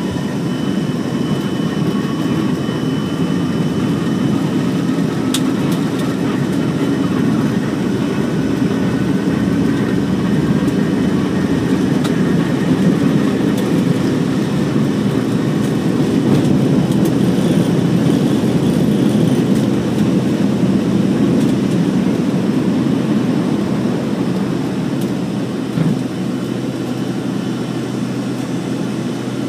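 Small airliner's engines at takeoff power, heard from inside the cabin during the takeoff roll and lift-off: a steady, loud rumble with a faint rising whine over the first several seconds. The noise eases a little near the end, and there is one brief knock shortly before the end.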